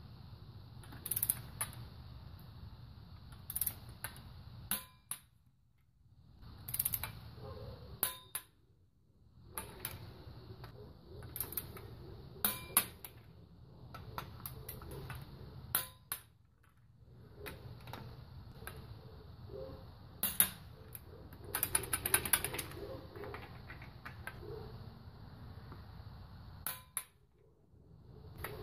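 Click-type torque wrench snapping every few seconds as each cylinder head bolt on a Toyota 1ZZ-FE is brought up to 36 ft-lb, with metal clinks of the socket and wrench going onto the bolts. A quick run of clicks comes about two-thirds of the way through.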